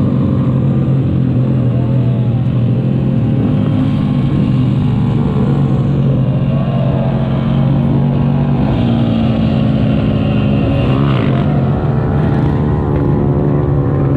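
A pack of small motorcycles, Honda Grom minibikes among them, riding close by, their single-cylinder engines revving up and down in pitch over a steady low engine drone. One bike revs up sharply about eleven seconds in.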